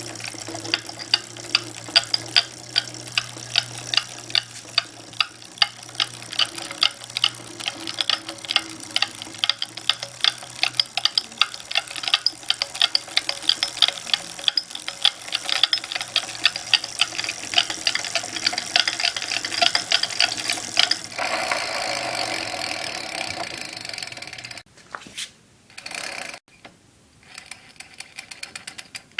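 Rear drivetrain of an A2B Metro G2 e-bike clicking rapidly and evenly, about four clicks a second. This is the pedaling noise that the owner suspects comes from an under-lubricated stock DNP Epoch 7-speed freewheel. Near the end the clicking gives way to a rushing hiss, then cuts in and out.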